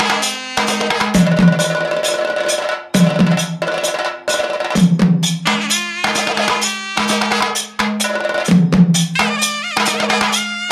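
Kerala percussion music with maddalam and idakka: dense, fast drum strokes over a steady low tone, with a drum tone that slides down in pitch every couple of seconds.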